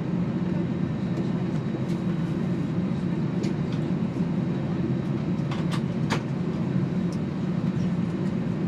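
Steady low drone inside an Airbus A321 cabin as the airliner moves off the stand, from the air conditioning and engines. A few faint clicks come about three and a half and six seconds in.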